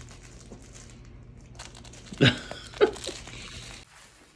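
A cat wrestling with and biting a plush carrot kicker toy, with two short sharp noises about half a second apart, a little after two seconds in.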